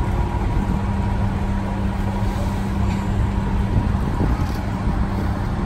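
Liebherr mobile crane's diesel engine running steadily, a low drone with a constant hum.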